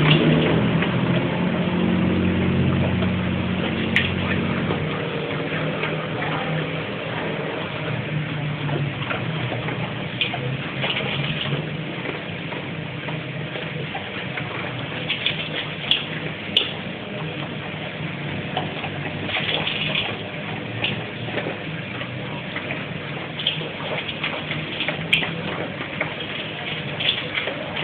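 Dogs eating dry kibble from stainless steel bowls: short bursts of crunching and clinks over a steady hiss. A low hum fades over the first few seconds.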